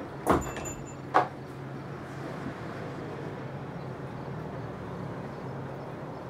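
Two sharp knocks about a second apart over a steady low hum.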